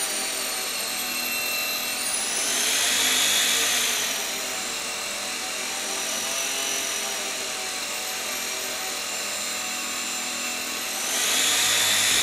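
High-pitched electrical whine from the pulse-driven ignition-coil transmitter, its tones shifting as the drive frequency is swept through the coils' resonance. The tones glide upward about two seconds in and back down near the end, over a fainter lower hum.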